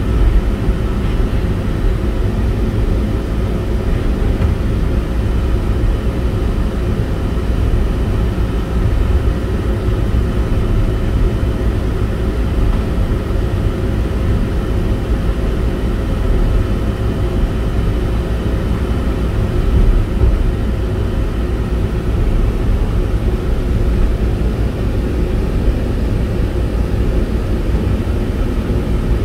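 Resort tram running along its track, heard from inside the car: a steady low rumble with a faint steady whine above it.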